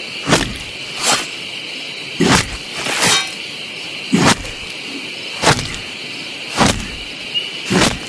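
Slow, heavy footsteps on the forest floor, about one step a second, over a steady chorus of crickets chirping.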